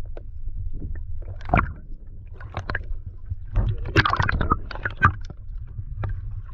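Water sloshing and knocking against a plastic kayak hull over a steady low rumble, with irregular splashes and clicks, busiest a little past the middle.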